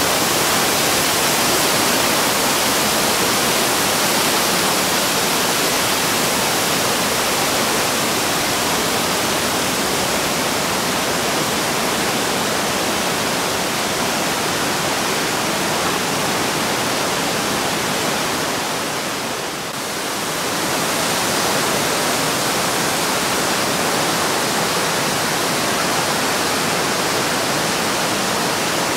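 Steady rushing of water in a narrow rock gorge: waterfalls spilling down the gorge walls and the Breitach river running below. It dips briefly about twenty seconds in.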